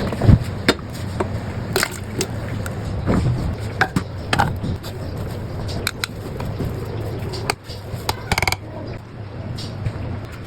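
Irregular clicks and knocks of kitchen utensils and dishes being handled during food preparation, over a steady low hum.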